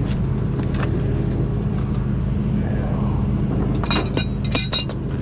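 Tow truck engine idling steadily, with a few sharp metallic clinks of the winch hook and chain being unhooked from under the vehicle about four seconds in.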